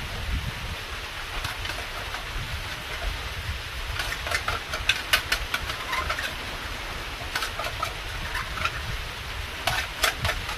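Wind rumbling on the microphone, with clusters of small clicks and crackles about four seconds in, again a few seconds later, and near the end.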